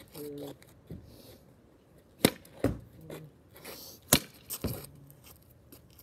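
A tennis ball struck with a racket and hitting a garage door: two pairs of sharp hits, each pair under half a second apart.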